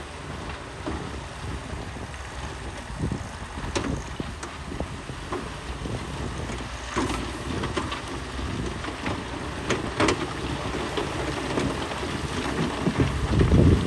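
Heavy earthmoving machinery running with a steady low engine rumble, with scattered knocks and clatters of soil and rock being moved; the engine swells louder near the end.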